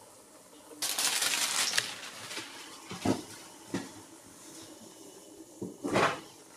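Pancake batter frying in a pan: a faint sizzle, with a burst of hissing about a second in that fades away, and a few light knocks.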